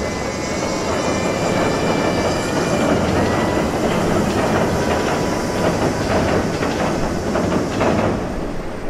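Steam-hauled train (JNR Class 8620 locomotive No. 58654 with its carriages) crossing a steel truss railway bridge: a loud, steady rumble of wheels on the rails and bridge, with a run of clattering clicks in the second half.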